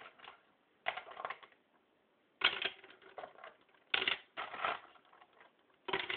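Hands handling small polymer-clay canes and a plastic storage box: short bursts of clacking and rattling, four or five times, with quiet gaps between.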